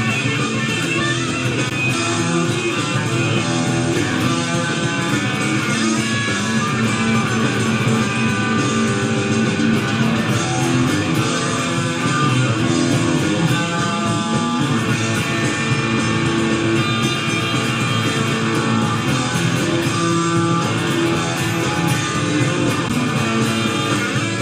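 Live blues-rock power trio playing, with electric guitar improvising over bass guitar and drums.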